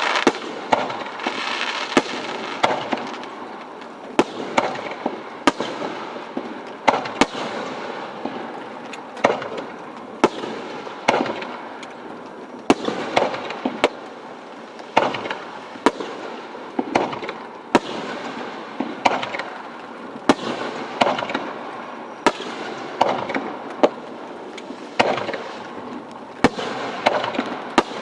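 Aerial display fireworks bursting one after another, a sharp bang about every second, with crackling in between.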